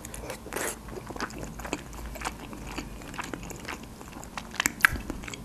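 Close-miked chewing of a mouthful of soft stuffed cabbage roll: small wet mouth and lip smacks throughout, with a few sharper smacks about four and a half seconds in.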